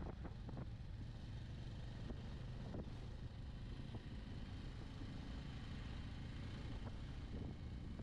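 Bajaj Avenger 160 Street's single-cylinder engine running at a steady pace while riding, with wind on the microphone.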